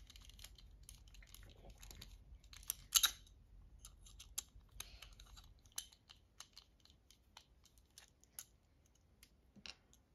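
Light, irregular clicks and taps from a Demko AD20 folding knife being taken apart: its small scale screws being worked out and the loose parts handled and set down, with a sharper clatter about three seconds in.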